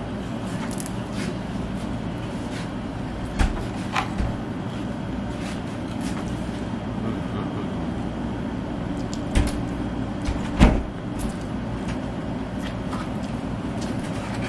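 A person eating toast: a handful of short clicks and knocks from chewing and from handling the cardboard box, the loudest about ten seconds in, over a steady low hum.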